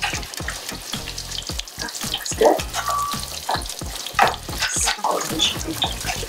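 Breaded chicken cutlets frying in hot oil in a stainless steel pan: a steady sizzle and crackle, with several louder spurts as the cutlets are turned over with tongs.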